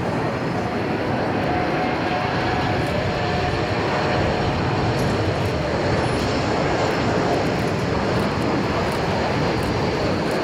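Embraer E195-E2 airliner's Pratt & Whitney PW1900G geared turbofans as it flies past low on landing approach with gear down: a steady, continuous jet rush.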